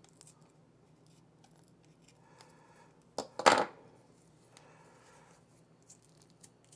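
Needle-nose pliers and an old cardboard-sleeved electrolytic capacitor being handled as the old capacitor is pushed out of its sleeve: faint rubbing and small ticks, with two sharp metallic clicks about three seconds in, the second the loudest.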